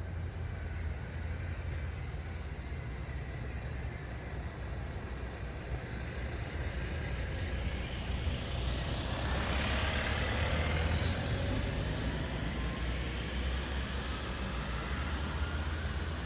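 City road traffic at night: a steady low rumble of traffic, with one vehicle's tyre and engine noise swelling as it passes close, loudest about ten seconds in, then fading.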